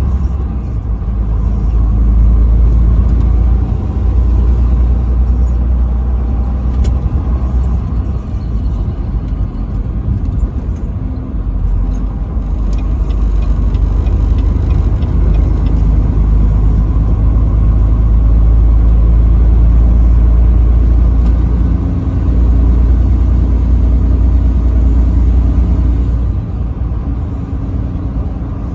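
Steady low engine and road rumble of a vehicle driving on the interstate highway, with no horn blast.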